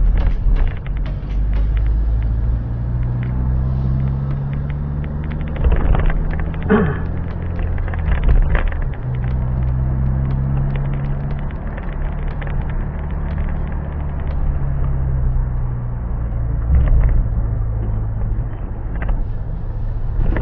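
Low engine and road rumble heard from inside a moving vehicle, the engine note slowly rising and falling, with scattered small knocks and rattles.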